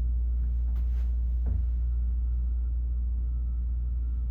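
Steady low rumble in a cruise ship cabin, the ship's background machinery noise, with a few faint clicks a second or so in.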